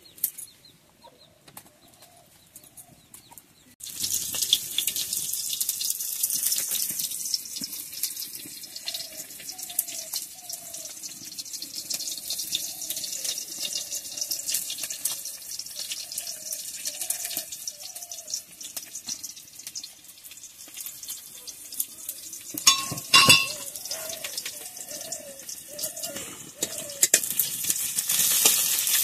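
Hot oil sizzling in an aluminium kadai over a wood fire, starting suddenly a few seconds in as ingredients are dropped into it, with a steady hiss. Hens cluck in short calls throughout, and there is one sharp knock about two-thirds through.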